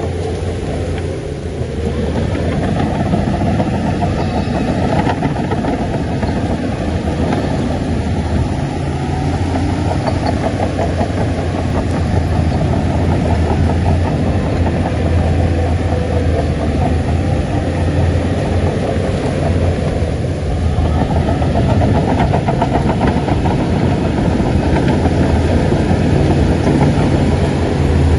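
Shantui bulldozer's heavy diesel engine running steadily under load, getting louder about two seconds in.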